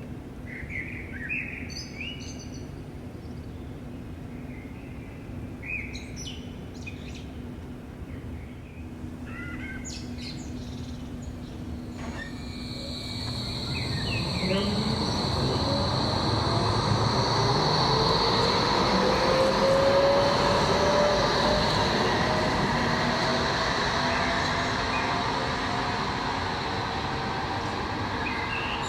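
A few bird chirps, then an electric tram passes: its traction motor whine rises steadily in pitch as it speeds up, over wheel-on-rail noise and a high steady hiss. It grows loudest about two-thirds of the way through and eases off near the end.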